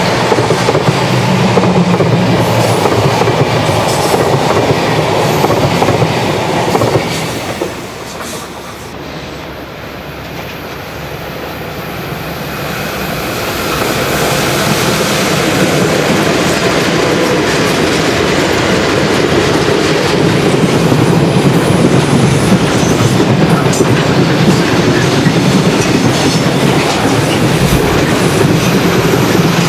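Passenger coaches of a Swiss electric train run past close by, clattering over the rails, and the sound drops away about seven seconds in. Then an electric-hauled container freight train approaches and passes close, its wagons rumbling and clacking over the track, growing louder and holding steady.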